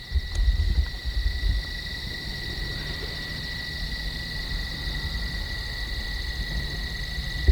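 Steady insect chorus: a constant high-pitched trill with no break. Low rumbling on the microphone during the first second and a half.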